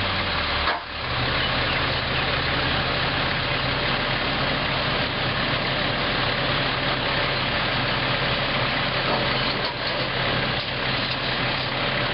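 Heavy work-site engine running steadily at idle, a constant low hum under a noisy rumble, with a brief dip just under a second in.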